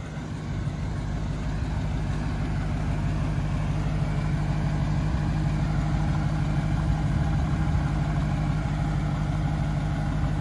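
Supercharged 6.2-litre Hemi V8 of a 2016 Dodge Challenger Hellcat idling steadily.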